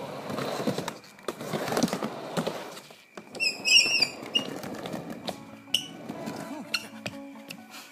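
Skateboard wheels rolling on a wooden halfpipe ramp, then a harsh metal scrape about three and a half seconds in as the board meets the metal pipe coping. In the second half, a few sharp knocks of the loose board on the wood, with music coming in faintly.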